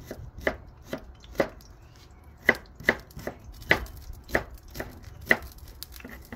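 Chef's knife chopping onion on a wooden cutting board: about ten sharp knocks of the blade striking the board, irregularly spaced.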